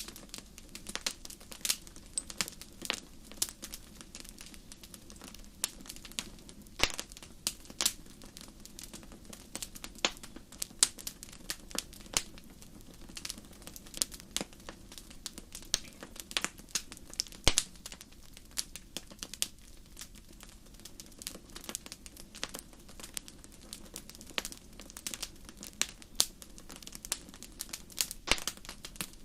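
Campfire crackling: dense, irregular sharp pops and snaps, several a second, with a few louder cracks, over a steady low rumble.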